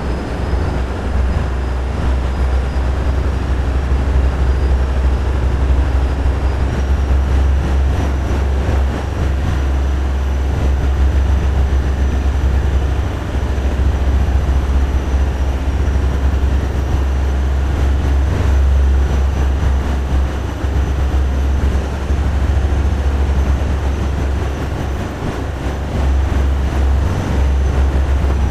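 Tugboat diesel engines running: a loud, steady deep drone that swells and eases slightly.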